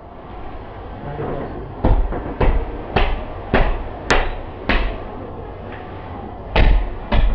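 A hatchet chopping through a side of pork ribs on a wooden chopping block: six heavy chops about half a second apart, starting about two seconds in, then a short pause and two more chops near the end.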